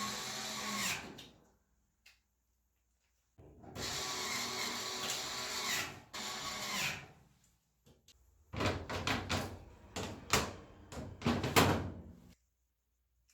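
A power drill-driver running in two spells of a few seconds each, then a run of sharp knocks and clatter as parts are handled during the dryer teardown.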